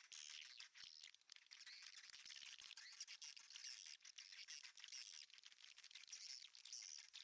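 Faint, continuous twittering of many swiftlets, with rapid sharp clicks through it.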